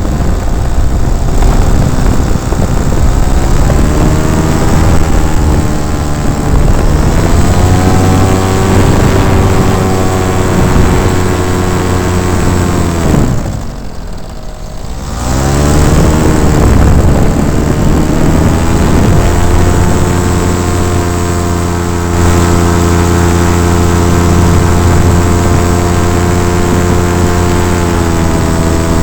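Paramotor engine and propeller running loud, the pitch drifting up and down with the throttle. About halfway it is throttled right down for a second or two, then opened up again.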